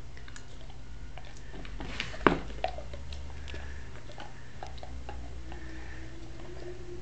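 Bernese Mountain Dog chewing a hard homemade dog biscuit: scattered small crunches and clicks of teeth on the biscuit, with one loud crunch a little over two seconds in and a smaller one just after.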